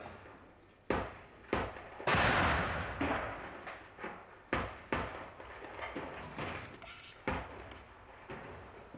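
Sporadic gunfire and explosions: a string of sharp bangs with echoing tails, about one every second, the heaviest blast about two seconds in rolling on for a second or so.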